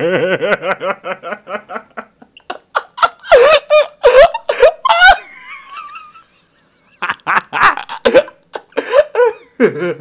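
A man laughing hard in rapid bursts, rising to high squealing laughs about three to five seconds in. After a short silent gap near the middle, the laughing starts again.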